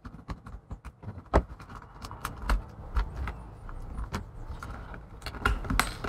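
Irregular light metallic clicks and ticks, a few a second, from pliers working a small metal spring out of a plastic MagSafe charger housing.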